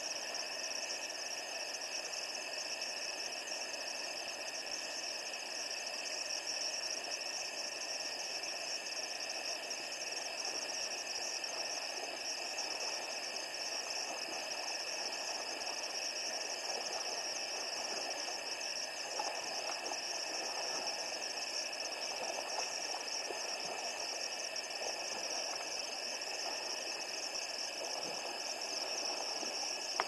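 Steady chorus of night insects over a constant hiss, unchanging throughout, with no hippo calls.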